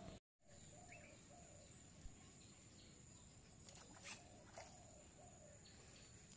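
Faint quiet outdoor ambience: a steady high-pitched hum, a few soft bird chirps, and a few faint clicks about four seconds in. The sound drops out completely for a moment just after the start.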